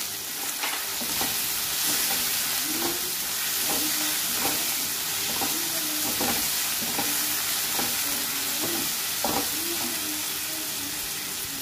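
Chopped vegetables sizzling in hot oil in a kadhai while a spatula stirs them, scraping and knocking against the pan about once or twice a second.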